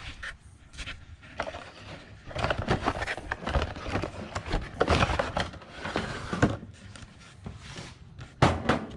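Cardboard box being opened and a trailer brake controller pulled out of it: rustling and scraping of cardboard and packing, with many small clicks, and a couple of sharp knocks near the end as it is set down on the workbench.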